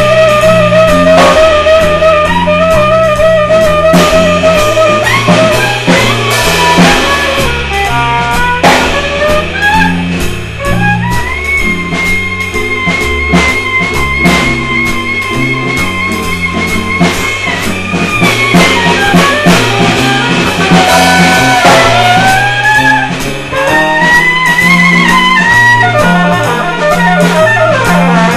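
A small band jamming on drum kit, guitars and a wind instrument. The horn plays the melody, holding a long note with vibrato at the start and later sliding between pitches, while cymbals and drums keep a steady beat under a repeating low line.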